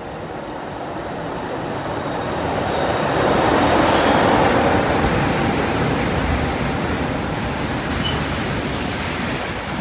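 Electric locomotives hauling a freight train of tank wagons pass close by, the rolling noise swelling to its loudest about four seconds in. It then carries on as a steady rumble and clatter of the tank wagons' wheels on the rails.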